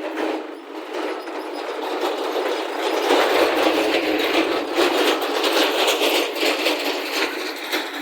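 JCB backhoe loader's diesel engine running under load with a continuous metallic rattle and clatter, growing louder about three seconds in.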